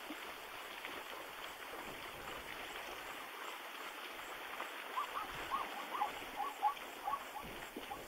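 Plains zebra giving a quick series of short barking calls, starting about five seconds in, over a steady hiss.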